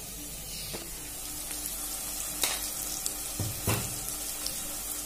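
Onions, elephant-foot yam and green peas frying in an aluminium pressure cooker, a steady sizzle, with a few sharp knocks of a spoon as chilli powder is spooned in.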